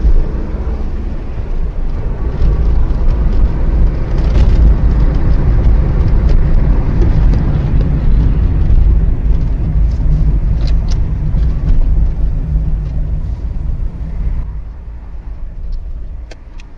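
Steady low rumble of road and engine noise inside a moving car, picked up by a dashcam. About 14 seconds in it gets quieter and duller, and a couple of sharp clicks come near the end.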